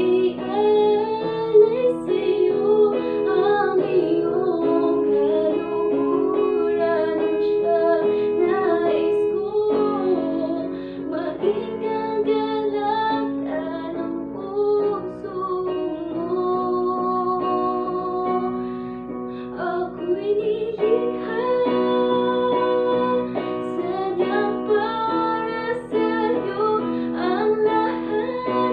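A woman singing a slow worship song with feeling, accompanied by chords on an electronic keyboard.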